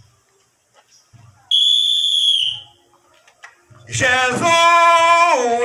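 A whistle blown once, a steady shrill note lasting about a second. A couple of seconds later a voice starts a long sung call, holding a note and then dropping in pitch near the end.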